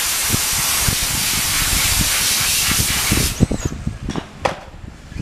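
A loud, steady hiss of rushing air or spray that cuts off suddenly about three seconds in, followed by scattered low thumps.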